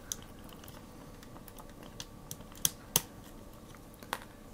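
Small plastic clicks and ticks from LEGO Technic parts as an axle with a stop is worked through the boom by hand. There are about half a dozen sharp clicks, the loudest two close together about three seconds in.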